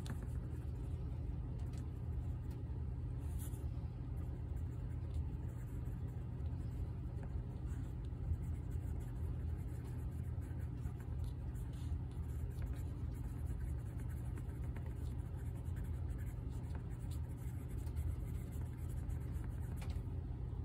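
Home furnace running with a steady low rumble, under the light, intermittent scratching of a watercolour pencil colouring on paper.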